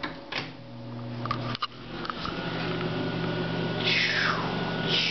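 A switch clicks, then a bathroom exhaust fan starts with a steady hum that grows louder. Near the end a falling whoosh repeats about once a second.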